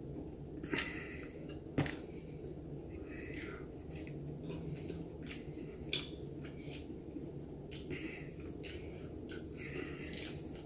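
Close-up chewing and lip-smacking on fried chicken: many small wet clicks, with a few sharper snaps among them.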